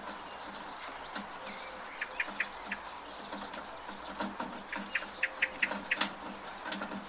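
Steady rain with water dripping from a gutter and birds chirping. Two quick runs of short, high notes or drips come about two seconds in and again past the middle.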